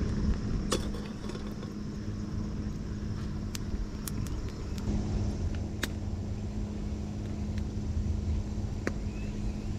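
Wood fire crackling in a camp fire pit, with scattered sharp pops at irregular intervals over a steady low rumble and a faint constant hum.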